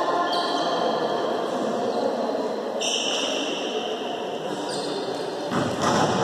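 Echoing noise of a volleyball game in a large sports hall: players moving on the court, with a ball bouncing. It grows louder near the end.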